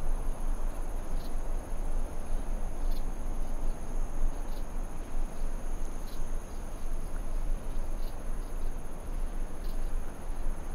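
Outdoor ambience: a steady high-pitched trill of crickets over a low rumble, with faint ticks about every second and a half.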